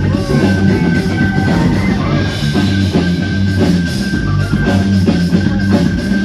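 Loud rock-style music with guitar and drums, going on with a steady beat.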